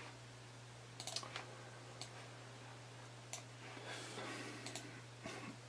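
A few faint, scattered clicks of a computer being operated, as an image viewer is clicked through from one photo to the next, over a low steady hum.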